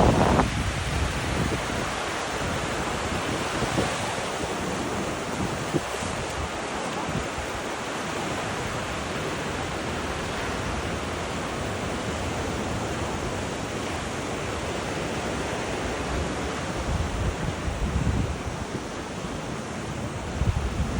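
Sea waves breaking and washing on a beach, a steady rush with wind buffeting the microphone in low gusts near the start and again near the end.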